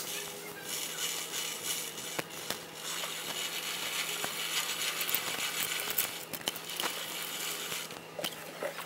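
Hand chain hoist being pulled hand over hand, its chain rattling and clinking with a steady run of small clicks as it lifts a heavy spot welding gun. One sharper knock near the end.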